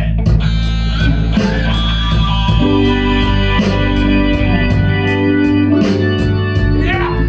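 Blues-rock band playing an instrumental passage between vocal lines: held organ-sound chords from the keyboard and electric guitar over drums, with a steady cymbal beat.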